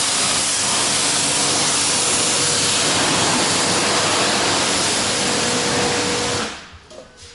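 Pressure-washer wand spraying a steady jet of water onto a car, a loud even hiss that stops about six and a half seconds in.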